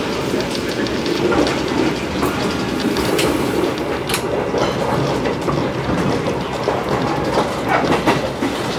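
A passenger train of 2016 INKA K1 coaches running along the track, a steady rumble of wheels on rails. It is broken by a few sharp clicks about three, four and eight seconds in.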